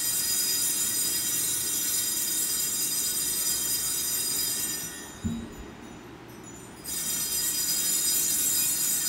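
Sanctus bells (a cluster of small altar bells) shaken in a continuous high ringing for the elevation of the chalice at Mass. The ringing stops about five seconds in, with a brief low sound, and starts again about two seconds later as the priest genuflects.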